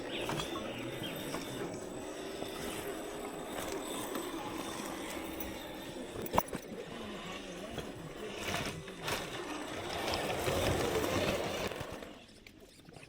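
FMS Toyota FJ40 RC scale crawler driving over rough ground, its electric motor and drivetrain running with tyres and chassis scraping, and one sharp knock about six seconds in.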